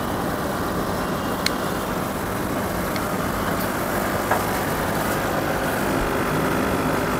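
Steady mechanical hum with an even noise and no change in level, broken by a few faint clicks.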